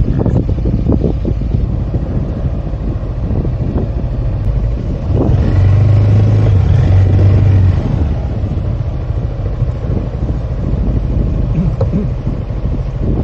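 Yamaha XMAX300 scooter's single-cylinder engine running on the move, with wind buffeting the microphone. The engine note swells louder and steadier for a couple of seconds around the middle.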